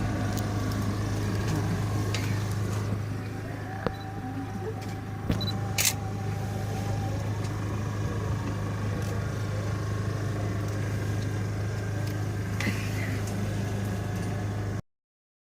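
Steady low mechanical hum with faint background voices and a few sharp clicks; the sound cuts off abruptly near the end.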